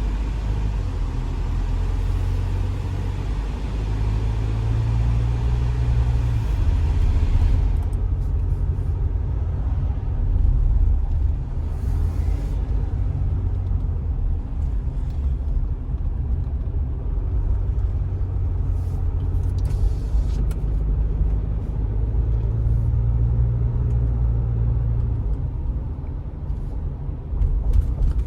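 Isuzu MU-X diesel engine and road rumble heard from inside the cabin, a steady low rumble whose pitch shifts a little. A steady airy hiss sits over it and drops away about seven seconds in.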